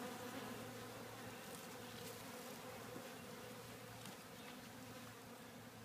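Honeybees buzzing steadily around a busy hive entrance: a faint, even hum of many bees.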